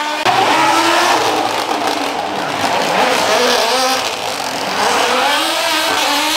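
Ford Escort Mk2 rally car's engine running hard under load on a stage, its pitch climbing in the last couple of seconds as the car accelerates.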